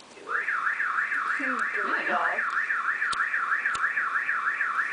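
Car alarm sounding a fast warbling tone that rises and falls about four times a second, starting abruptly just after the start. Two short clicks come about three seconds in.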